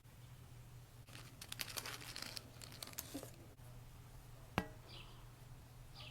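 Slime being squeezed and worked by hand, crackling and popping in a dense run of small crackles for a couple of seconds, then one sharp click about four and a half seconds in.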